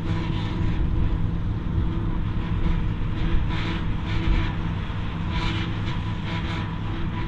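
Ford TW20's six-cylinder diesel engine working steadily under load as it drives a Taarup forage harvester, with a steady whine from the harvester's rotor and the surging rush of chopped grass blown out through the spout.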